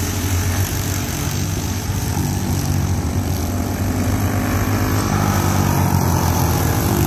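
Junior racing go-karts' small single-cylinder engines running around the track, a steady buzzing drone that grows a little louder near the end as a kart comes closer.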